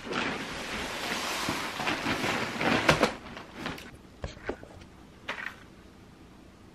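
Delivery packaging rustling and being rummaged through for about three seconds as groceries are unpacked, then a few light knocks and rustles as a cardboard box of spaghetti is handled.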